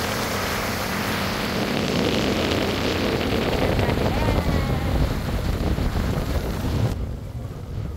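Wind rushing over the microphone on a ferry's open deck, over the steady low rumble of the boat under way; the wind noise eases about seven seconds in.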